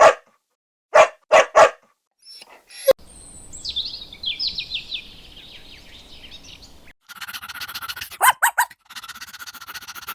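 A dog barking: a few short, sharp barks in the first two seconds. Then other animal calls follow: a run of high, quickly falling squeaks, and near the end rapid chattering calls.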